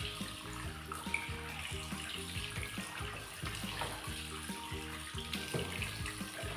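Kitchen tap running into a basin of fish as the pieces are rinsed and turned by hand, water splashing and trickling, with background music underneath.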